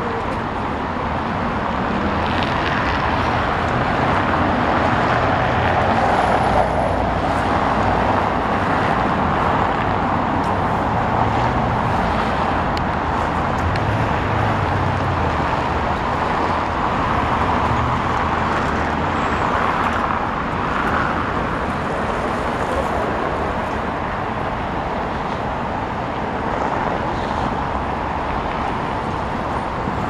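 Steady city street traffic: cars driving past in a continuous wash of engine and tyre noise that swells and eases gently.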